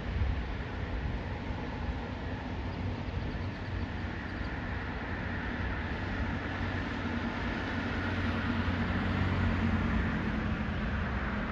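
Steady low rumble of a passing vehicle, growing a little louder toward the end.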